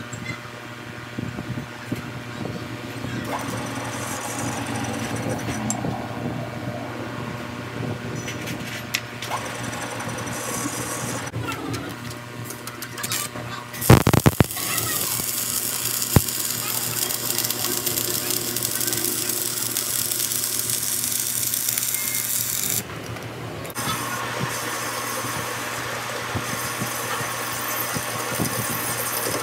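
A steady machine hum, then about halfway through an electric welding arc strikes with a loud crack and crackles and hisses steadily for about nine seconds before cutting off. Near the end a metal lathe runs, its chuck spinning.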